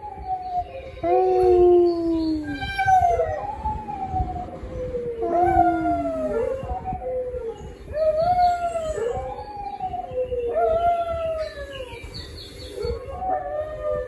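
Small dog howling: about five long howls in a row, each rising and then gliding down in pitch, one every two to three seconds.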